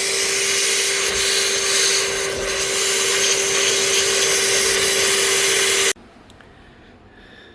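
Vacuum cleaner running steadily with a constant hum, sucking the broken fragments of the failed steering-coupler disc out of its housing, then switched off suddenly about six seconds in.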